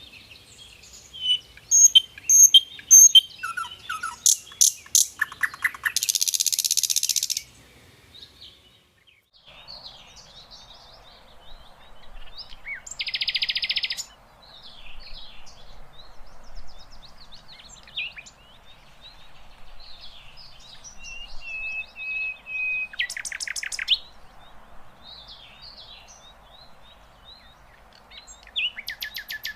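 A sikatan londo flycatcher singing a varied run of high chirps and whistles, broken by several loud, rapid buzzy trills. A faint steady hiss of background noise sets in about ten seconds in.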